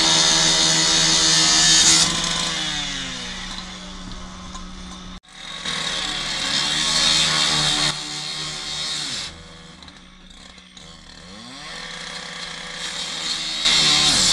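Handheld two-stroke power saw running at full throttle in bursts, its pitch sliding back down to idle in between, then revving up again near the end.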